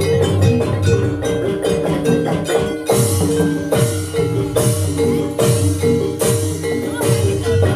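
Live jaranan gamelan music: bronze metallophones play a repeating melody over kendang drum strokes. From about three seconds in, a bright splashy hit recurs roughly every second.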